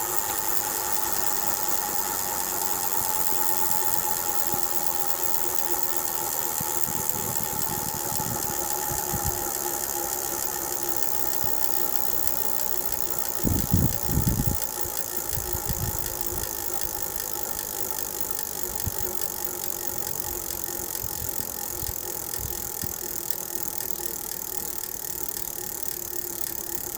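Bicycle drivetrain turning steadily with new rear gears that wobble and make a ticking noise. There are a few low knocks about halfway through.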